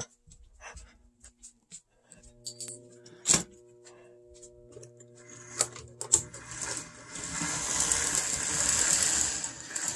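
Walthers Conrail model diesel locomotive running with a string of freight cars on the track. A steady low hum with a few sharp clicks gives way about six seconds in to a rising, steady whirr of the motor and gears, loud enough that the owner calls it kind of loud and thinks it may need oiling.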